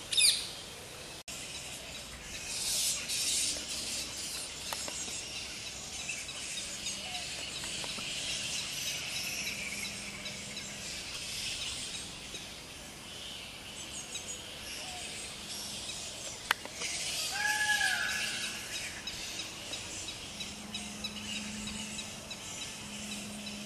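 Many small birds chirping and calling in woodland, a continuous high chorus. A loud, sharp call comes just after the start, and a short, arched call about two-thirds of the way through.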